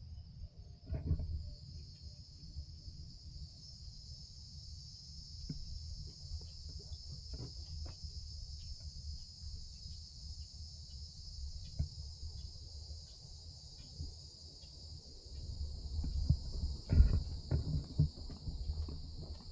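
A steady, high insect chorus in the woods, with a low rumble underneath and scattered faint crackles. Heavier knocks and thumps from handling and walking come in near the end.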